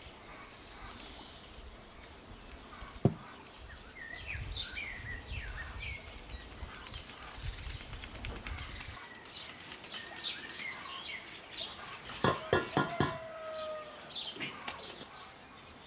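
Birds chirping and calling in the background, short rising and falling notes. A sharp knock about three seconds in, a low rumble for several seconds in the middle, and a quick run of knocks shortly before the end come from flour sifting and bowl handling.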